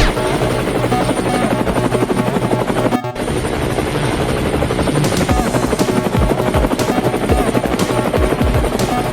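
A steady chopping, whirring drone like a helicopter's rotor, with background music underneath; the sound briefly drops out about three seconds in.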